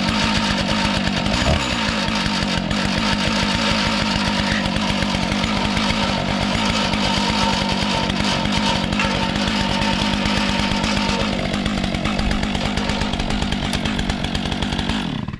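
Stihl 661 two-stroke chainsaw running at full throttle on a 56-inch bar in a Granberg Alaskan chainsaw mill, ripping lengthwise through a large white oak crotch. The engine holds a steady pitch under load, then cuts off abruptly near the end.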